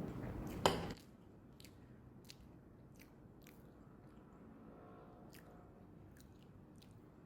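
Quiet eating sounds: soft chewing with scattered small mouth clicks. A sharp click comes just under a second in, and the background drops right after it.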